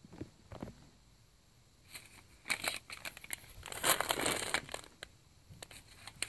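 Crinkling and rustling of gift wrap and tinsel being handled close to the microphone, in bursts around two to three seconds in and loudest about four seconds in.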